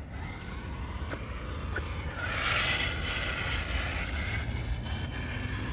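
Electric RC truck's motor and gears whining as it drives, swelling to its loudest about two to three seconds in, over a steady low rumble.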